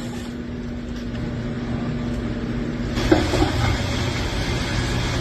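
A steady low mechanical hum. A thin steady tone in it stops about three seconds in, followed by a click and a few short tones.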